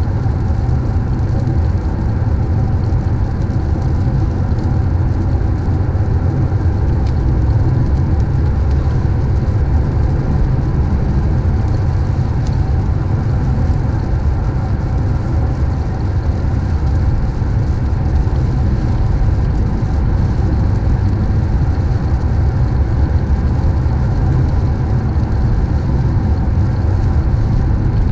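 Steady low rumble of a car driving along a road: engine and tyre noise with no changes.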